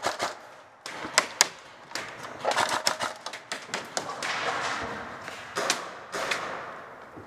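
Airsoft guns firing, a string of irregular sharp cracks and pops, some in quick pairs and short runs.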